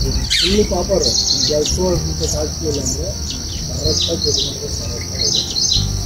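Red-whiskered bulbul nestlings giving scattered short, high begging chirps as they are fed, over a steady high-pitched drone of crickets.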